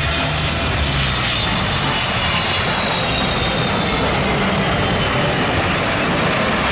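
Boeing 777 jet airliner landing and rolling out on the runway: steady jet engine noise with a high whine that slowly falls in pitch.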